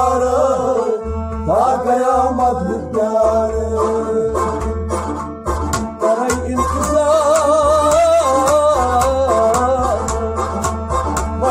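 Kashmiri Sufi devotional song (kalam) with singing: a wavering, ornamented melody over a steady low drone, with regular percussion strokes.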